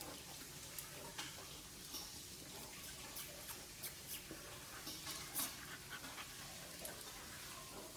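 Faint scuffling and scattered light clicks of dogs playing on a tile floor: a puppy's claws and feet scrambling around a lying Newfoundland as it tugs at a leash.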